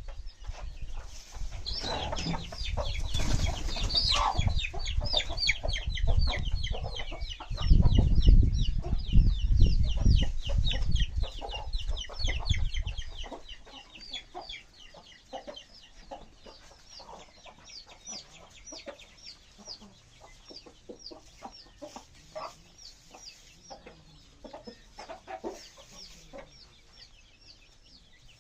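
A flock of country chickens calling: clucks with a near-constant stream of short, high, falling calls. A low rumble sits under the first half, loudest about eight to twelve seconds in, and stops around thirteen seconds in.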